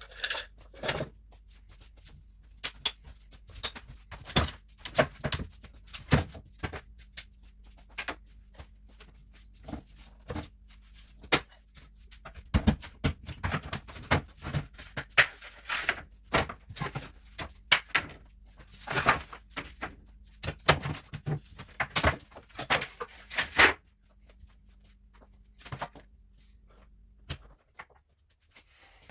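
An old workbench top of nailed tongue-and-groove wooden lining boards being pried and torn off: irregular knocks, cracks and creaking scrapes of wood, thinning out near the end.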